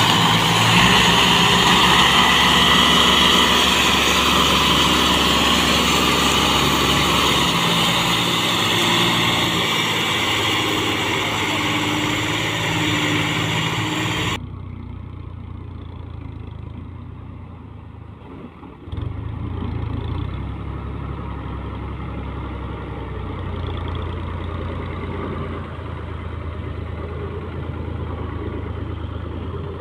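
Al-Ghazi farm tractor diesel engines running hard: a loud, steady engine note. About halfway it cuts to a quieter, duller tractor engine pulling a loaded sugarcane trolley, which dips and then picks up again.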